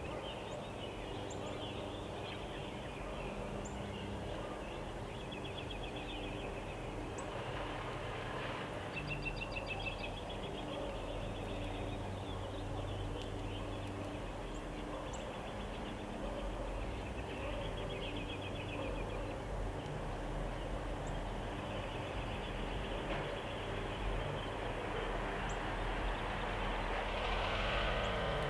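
Backyard ambience: other birds trilling and singing in the distance over a low steady rumble of traffic. Near the end a passing vehicle grows louder.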